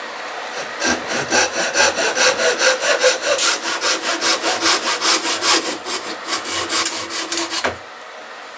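Hand saw cutting through wood in quick, even back-and-forth strokes, about five or six a second, stopping shortly before the end.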